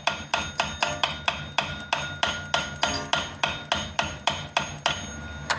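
The bell of an Ansonia clock struck by hand with the clock key, about three strikes a second, each hit ringing with a clear metallic tone.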